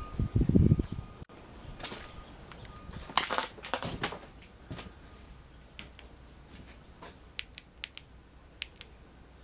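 Handling noise inside a shed: a muffled low thumping near the start, rustling around the middle, then a string of sharp light clicks.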